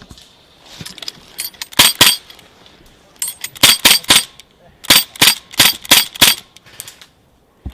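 Airsoft gun firing single shots in quick groups: two sharp cracks about two seconds in, then a run of several more between about three and a half and six and a half seconds.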